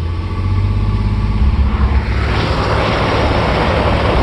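A 1998 Chevy S10 Blazer's knocking 4.3 Vortec V6, which is running with almost no oil pressure, pulls under throttle with a steady low drone. About two seconds in, a loud rushing noise builds over it.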